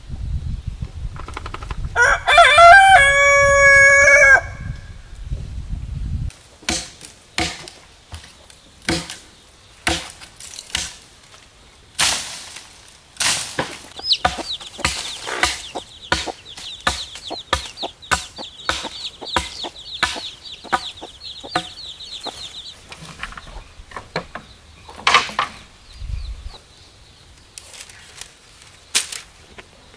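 A rooster crows once, loudly, about two seconds in, for about two and a half seconds. Scattered clicks and taps follow. Through the middle there is a run of high, thin peeping from young chicks beside their hen.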